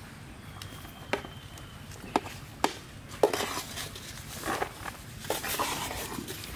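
Light clicks and knocks of a steel ladle against a steel bowl of curry gravy, followed about halfway through by the rustling and creaking of foam takeaway food boxes being handled.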